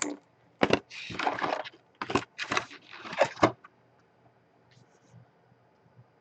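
A sharp snap, then several bursts of tearing and crackling from card-box packaging being ripped open, stopping about three and a half seconds in.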